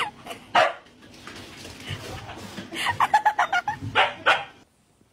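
A dog barking and yipping in short bursts, with a quick run of yips about three seconds in.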